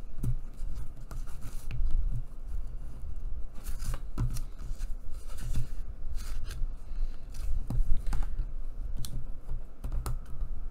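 Bone folder scraping along the folds of kraft cardstock to set the creases, a series of short scratchy strokes, with the paper being handled between them.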